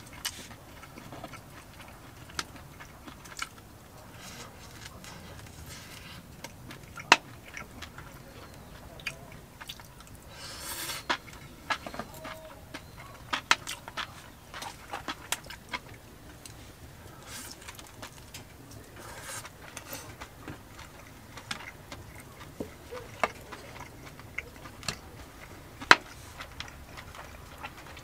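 Chopsticks clicking and scraping against a plate of food, with soft chewing; sharp clicks come now and then, a few of them louder.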